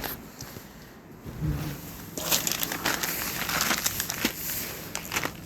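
Crinkling and rustling handling noise with many small clicks, starting about two seconds in, as of something crinkly being handled during bike work.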